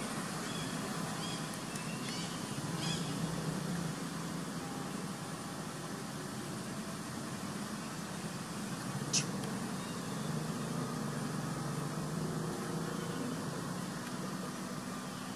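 Distant road traffic: a steady low rumble. A few faint high chirps come about two to three seconds in, and one short high-pitched chirp about nine seconds in.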